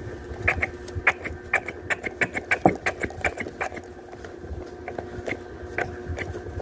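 Handling noise: a run of sharp, irregular clicks, densest in the first half and sparser near the end, over a steady hum.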